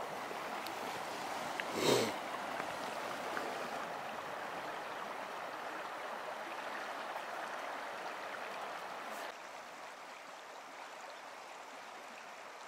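Steady rushing of a stream or river. A brief vocal sound comes about two seconds in, and the rush turns a little quieter about nine seconds in.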